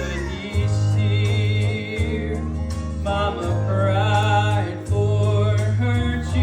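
A man singing a gospel song with instrumental accompaniment, over a heavy bass line that moves to a new note every second or so.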